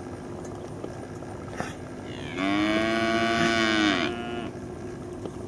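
A Brangus heifer mooing once: one long, loud call of about two seconds, starting about two seconds in and dropping in pitch as it ends.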